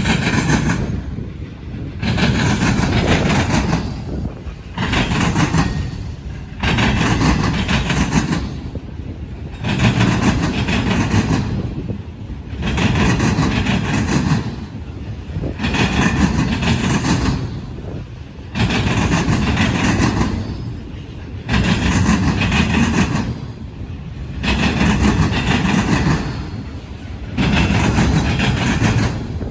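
Freight train cars rolling over railroad diamonds: a loud wheel clatter every two to three seconds as each car's wheel sets pound across the crossings, with quieter rolling between.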